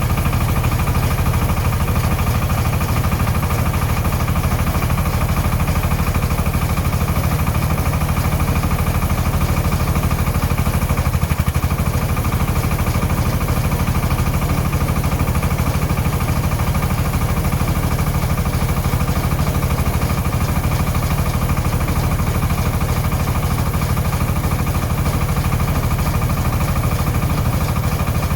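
Engine of a tricycle silage feed mixer spreader running steadily, with a fast, even pulse and a strong low hum that hold unchanged.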